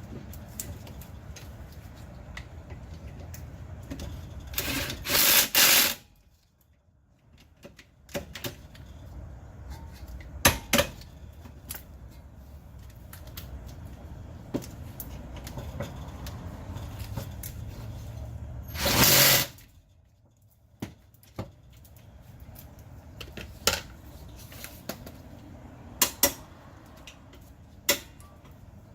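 Impact wrench hammering bolts tight in short bursts: two back to back about five seconds in, and one longer burst around nineteen seconds. Scattered clicks and knocks of tools being handled come in between.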